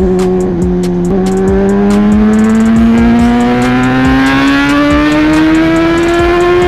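Honda CB650R's inline-four engine pulling under acceleration, its pitch rising steadily as the bike gains speed in gear after a couple of short dips in the first second.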